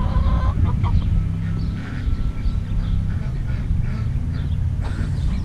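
Wind rumbling on the microphone, with ducks quacking faintly behind it.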